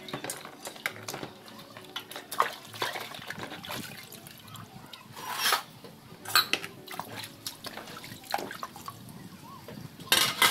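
Brass pooja vessels rinsed by hand in a plastic bucket of water: water sloshing and splashing, with metal clinks as the pieces knock together and are set down on a brass plate. Louder splashes come about five seconds in and just before the end.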